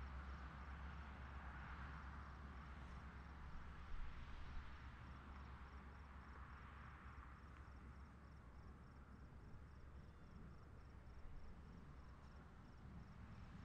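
Faint night ambience: a cricket chirping steadily at about two or three chirps a second, over the soft rush of distant cars passing on a road that swells and fades. A brief knock about four seconds in.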